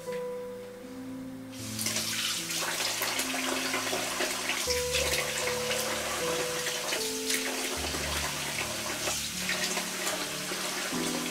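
Water running from a kitchen tap, a steady splashing hiss that starts about a second and a half in, over soft background music.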